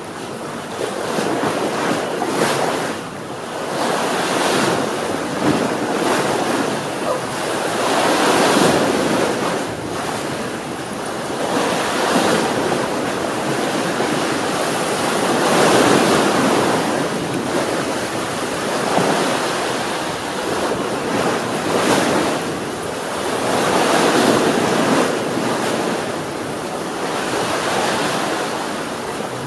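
Sea waves washing onto the shore, the surf swelling and ebbing in slow surges every few seconds, with some wind.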